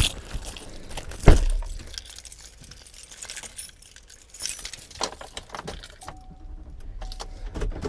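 A set of keys jangling and clinking, with handling knocks and rattles; one loud knock comes a little over a second in. Near the end a short steady electronic beep sounds two or three times.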